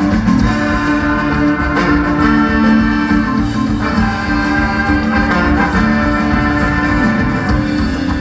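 A live band playing an instrumental passage with no singing: sustained keyboard chords, organ-like, over bass and drums.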